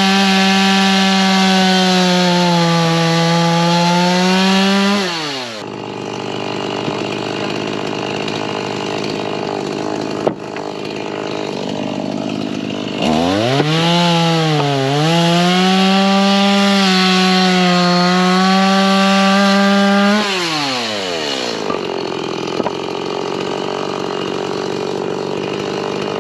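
Stihl two-stroke chainsaw cutting firewood at full throttle for about five seconds, dropping back to idle. About thirteen seconds in it revs up again for a seven-second cut, its pitch sagging briefly as the chain bites into the wood, then returns to idle before revving once more near the end.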